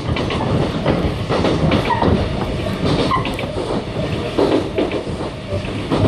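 Kintetsu electric train running on the rails: a steady rumble with irregular knocks and a few short high squeaks now and then.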